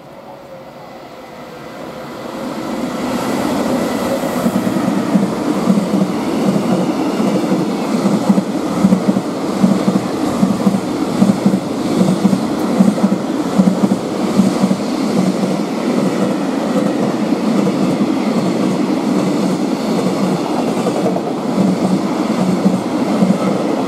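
High-speed container freight train passing close by. It grows louder over the first few seconds as it approaches, then holds a steady rush with a rhythmic clatter of wagon wheels over the rail joints.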